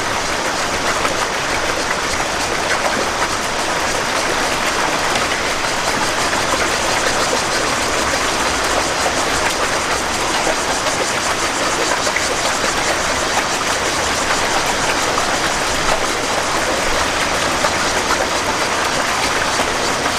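Steady, even rushing hiss with no speech, unchanging in level.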